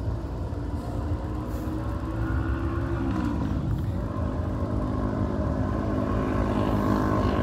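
A road vehicle's engine rumbling, its pitch dropping about three seconds in and then holding steady.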